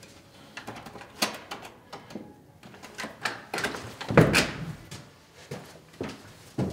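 A hotel room door being opened: a string of clicks and knocks from the handle and lock, the loudest knock about four seconds in, with shuffling steps.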